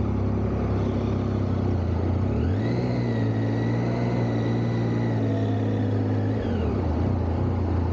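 Triumph Tiger 800's three-cylinder engine running under a slow ride: its pitch rises about two and a half seconds in as the bike pulls away, holds steady, then drops back near the end, with a high whine rising and falling along with it.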